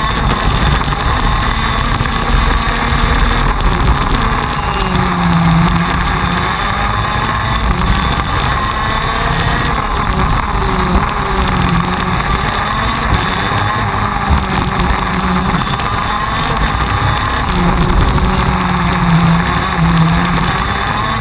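TM 125 cc two-stroke KZ2 shifter kart engine heard onboard at race pace, its pitch repeatedly rising and falling as it revs up and is shifted or backed off through corners, over a constant low rumble.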